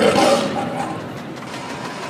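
Audience cheering and shouting, fading out over the two seconds.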